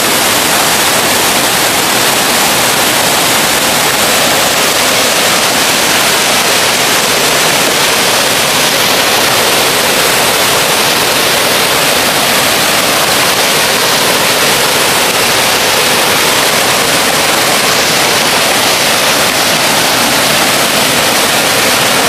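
Steady, loud rush of a waterfall pouring into its plunge pool, even and unbroken.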